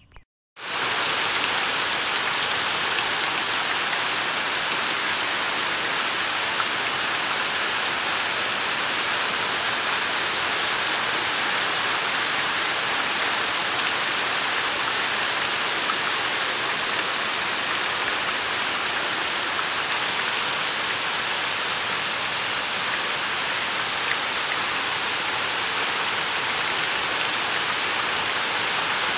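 Heavy rain pouring down on trees and vegetation: a steady, dense hiss that starts abruptly about half a second in.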